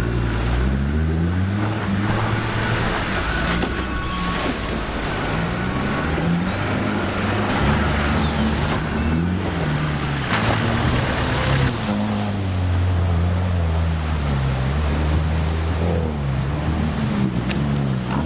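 Off-road vehicle engine revving up and down repeatedly, under heavy wind noise on the microphone.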